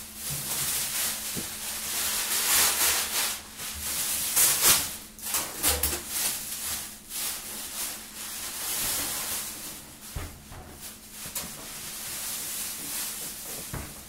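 Thin plastic packaging bag crinkling and rustling in irregular surges as a microwave oven is worked out of it, with a few dull knocks.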